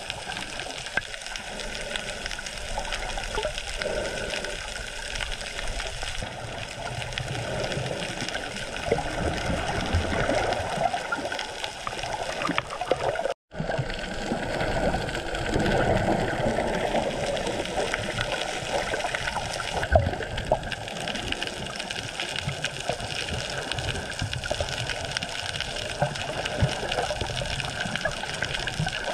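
Water rushing and sloshing against an underwater camera held just below the sea surface, a steady muffled wash. The sound drops out completely for a moment about thirteen seconds in, and there is one sharp click near twenty seconds.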